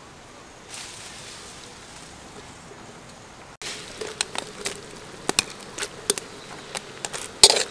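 Steady hiss of a steaming wok of boiled peanuts as its lid is lifted. After an abrupt cut about three and a half seconds in comes a run of sharp clinks and knocks as octopus pieces go into the wok and are stirred, loudest near the end.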